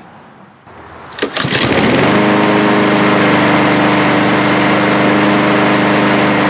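Troy-Bilt push mower's Honda auto-choke engine is pulled over and catches about a second and a half in, then runs steadily at full speed. It is running clean on a freshly fitted air filter that replaced one soaked with oil.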